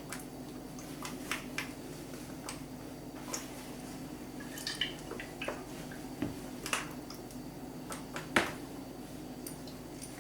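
Scattered light clicks and knocks of kitchen utensils and a mixing bowl being handled, over a steady low hum. The loudest knock comes about eight seconds in.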